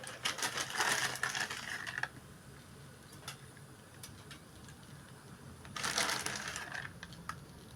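Chocolate sprinkles rattling as they are shaken out of their container onto the pancake: a dense patter of small ticks for about two seconds, a few scattered ticks, then a second shorter burst.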